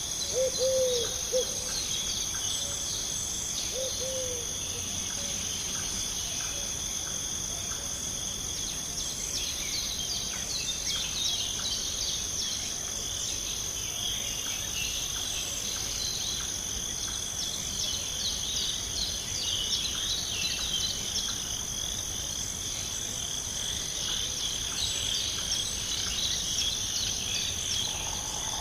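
Forest nature soundscape: a steady high insect trill with many short bird chirps over it. Two brief low calls stand out about a second and four seconds in.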